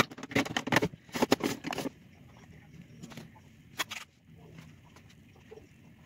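Makeup items being handled: a quick run of clicks and knocks over the first two seconds as things are put down and picked up, then two single clicks.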